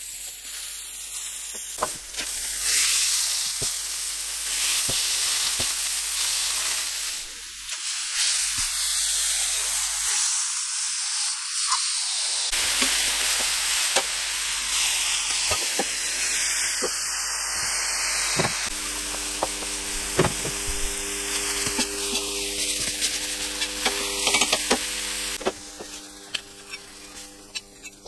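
Smash burger patties sizzling hard on an electric stainless-steel flat-top griddle as they are pressed flat with a metal spatula, with short clicks and scrapes of the spatula on the plate. The sizzle drops away near the end.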